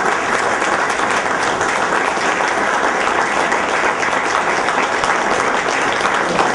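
Steady applause from a room full of people clapping.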